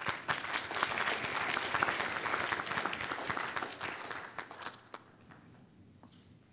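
Audience applauding: dense clapping that dies away about five seconds in, leaving a few last scattered claps.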